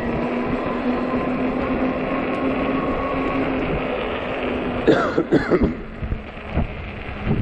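Wind and riding noise from a fat-tire e-bike in motion, with a faint steady hum that fades out partway through. About five seconds in, a person coughs a few times in quick succession.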